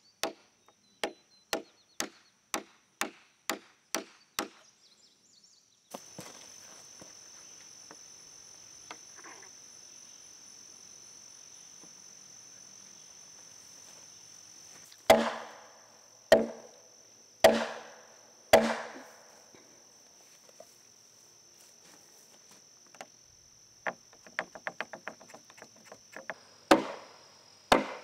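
Blows driving a wooden wedge into an oak sill joint. First come light, even taps, about two a second, for the first four seconds or so. After a pause come four heavier knocks that ring briefly, about a second apart, then a quick run of small taps and two more heavy knocks near the end. A steady high hum runs underneath from about six seconds in.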